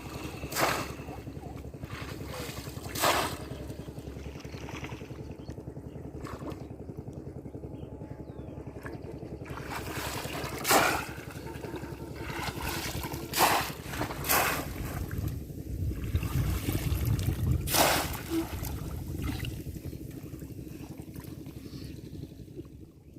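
Water splashing and sloshing, with about six sharp splashes scattered through a steady low rumble.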